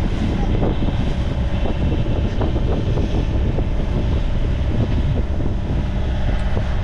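Wind buffeting the microphone over the steady rush of waves along the hull of a sailboat under way in a choppy sea.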